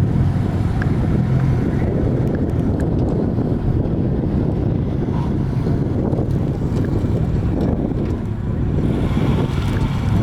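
A car engine idling steadily at close range, its exhaust note holding an even low pitch.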